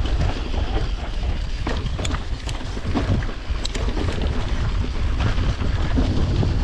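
Wind buffeting the microphone while a mountain bike rides over a rough trail, with a steady rumble of tyres and frequent short clicks and rattles from the bike.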